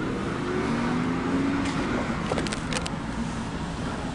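Street traffic: cars passing on the road beyond the tracks, one engine rising in pitch as it pulls away, over a steady low rumble, with a few short clicks about halfway through.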